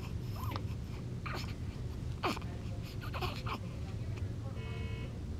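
Newborn baby making a few short squeaks and whimpers, one sliding down in pitch, over a steady low hum. A brief steady beep sounds near the end.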